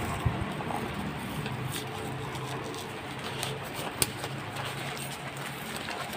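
Low, repeated cooing of a pigeon, with a single sharp click about four seconds in.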